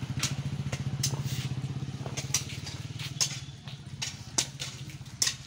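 A motor vehicle engine running with a fast, steady throb that fades after about three and a half seconds, with several sharp knocks in between.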